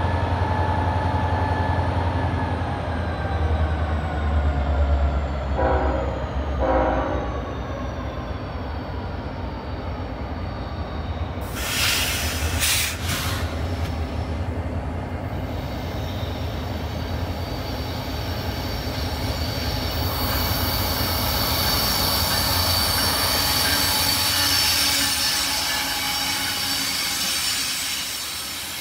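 CSX diesel freight train passing: locomotives rumbling by with their pitch gently falling, and two short horn blasts about six seconds in. A brief loud burst of noise comes about twelve seconds in, and from about twenty seconds on the wheels of the cars squeal steadily at a high pitch.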